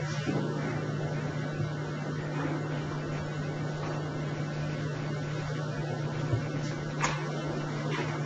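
A steady low hum over a hiss of background noise, with a couple of faint knocks near the end.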